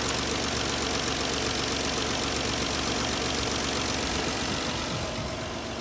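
Infiniti I30's V6 engine idling steadily, its misfire repaired.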